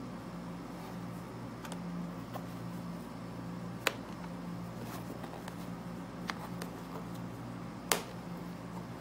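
A zippered hard-shell gimbal carrying case is handled and turned over in the hands, giving light scattered clicks and taps. Two sharper clicks come about four seconds in and near the end. A steady low hum runs underneath.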